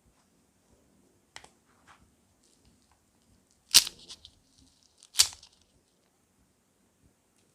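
Crunchy slime being squeezed and pressed by hand: a couple of faint clicks, then two sharp crackling pops about a second and a half apart.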